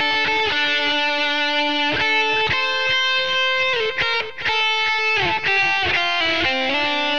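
Ibanez RG370DX electric guitar played through a Line 6 POD 2.0 amp modeler and recorded direct: a lead line of held single notes with pitch slides and bends between them, and a brief break about four seconds in.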